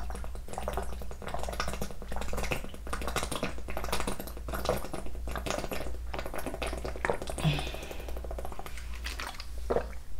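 A person gulping water from a plastic water bottle in one long drink, a steady run of swallows that stops near the end.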